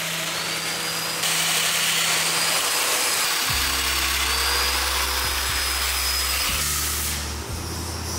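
Domino loose-tenon joiner running with dust extraction, plunging mortises for domino tenons into the hardwood edge strip and the tabletop panel. A steady motor whine, louder from about a second in and easing off near the end.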